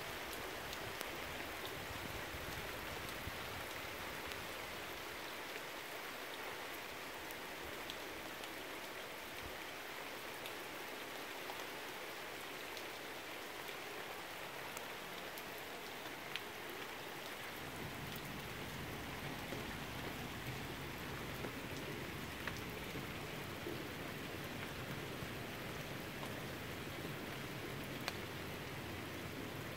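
Steady rain falling, an even patter with the odd sharper drop standing out. A low steady rumble joins in a little past halfway.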